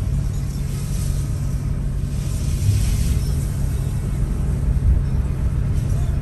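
Car cabin noise while driving: a steady low engine and road rumble, with tyre hiss on the wet road that swells about two to three seconds in.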